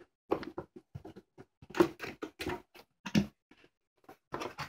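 A cardboard box being opened by hand: the flaps are pulled back, and the cardboard scrapes and rustles in a run of short, irregular crackles and clicks.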